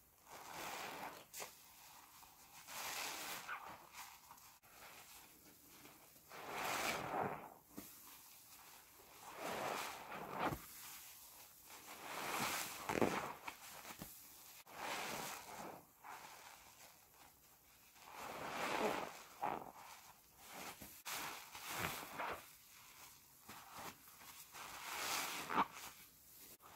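Sponges full of thick soap lather squeezed by gloved hands: wet squelching and crackling suds, about ten squeezes two to three seconds apart.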